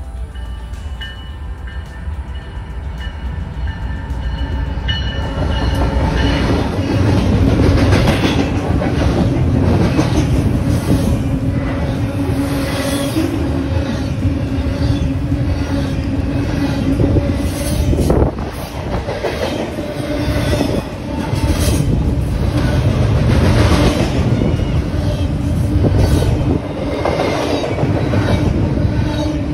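BNSF double-stack intermodal freight train approaching, then passing close by. It grows much louder about six seconds in, then settles into a steady rumble with the rhythmic clatter of the well cars' wheels over the rails.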